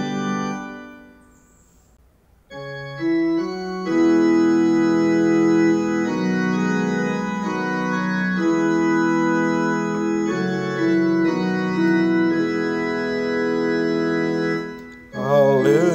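Organ playing slow, sustained chords as the introduction to a sung Alleluia, coming in about two and a half seconds in after the last held sung note of the psalm refrain fades. A singing voice enters near the end.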